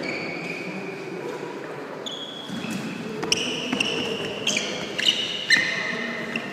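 Sneaker soles squeaking on a sports hall floor as two wrestlers grapple and pivot: several short, high-pitched squeaks, with a run of sharp foot thumps and scuffs in the second half as they turn into a throw attempt.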